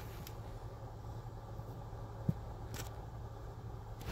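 Steady low background hum with faint handling noises: a soft thump about two seconds in and a light click shortly after, as a paper leaflet and the phone are moved about.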